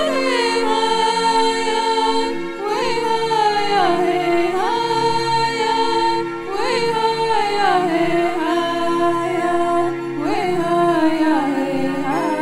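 Background music: a chant-like melody that glides up and then falls in phrases a few seconds long, over a steady drone.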